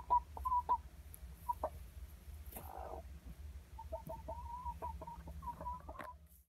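Hens clucking in short, repeated notes, in clusters with a gap in the middle, plus a brief rougher sound about two and a half seconds in. The sound cuts off just before the end.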